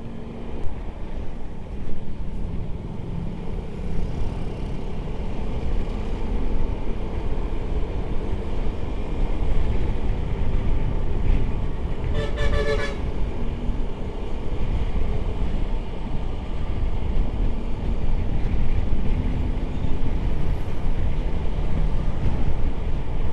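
Steady low rumble of a motorcycle ride, engine and road noise at the helmet microphone, with a vehicle horn sounding once for about a second around the middle.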